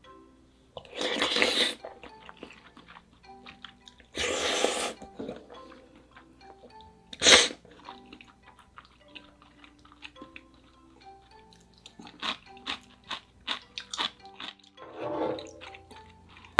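Close-miked eating of spicy ramyeon with soft tofu: two long noisy slurps of noodles, a sharp click a little after seven seconds, then a run of small wet chewing clicks and another slurp near the end. Quiet mallet-instrument background music plays under it.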